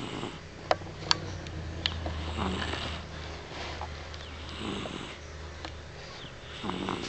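Sleeping dog snoring, four snores about two seconds apart. A few sharp clicks come in the first two seconds.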